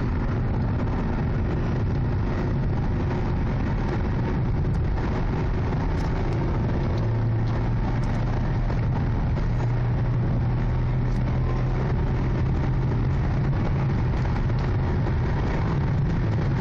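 Ford Mustang cruising at highway speed, heard from inside the cabin: a steady low engine drone mixed with tyre and road noise. The drone grows a little stronger about seven seconds in.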